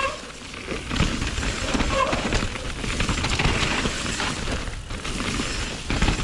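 Downhill mountain bike descending rough trail at speed: a dense, irregular clatter of the bike's chain and frame and the tyres knocking over roots and rocks, over a steady rushing noise.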